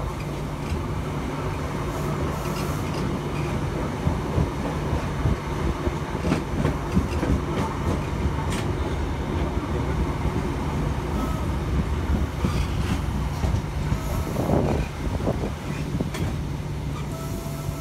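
Onboard running noise inside a ScotRail HST passenger coach on the move: a steady rumble and low hum of the wheels on the rails. Scattered short clicks and knocks from the track come through it.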